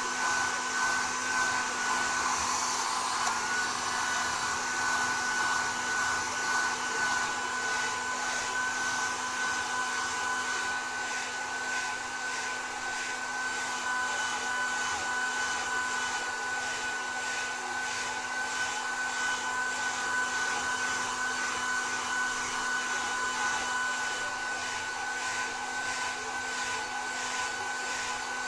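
Electric hair dryer blowing steadily: an even rush of air with a constant high-pitched whine from the motor.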